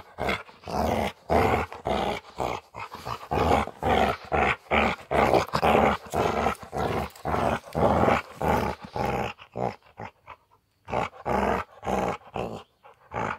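Large dog play-growling in short repeated bursts, about two a second, while tugging on a jute bite roll held in its teeth; the growls break off briefly near the end.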